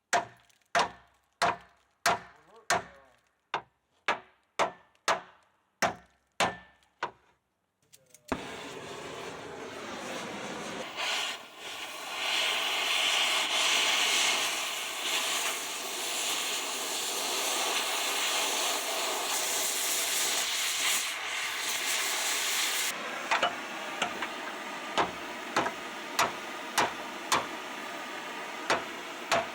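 Hammer blows on metal, about two a second, for the first eight seconds. Then the steady hiss of an oxy-acetylene cutting torch (the 'blue wrench') cutting through old frame metal, with scattered sharp taps over it near the end.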